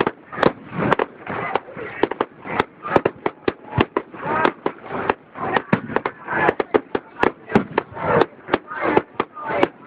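Fireworks display: a rapid, irregular string of sharp bangs and cracks, several a second, with crowd voices in between.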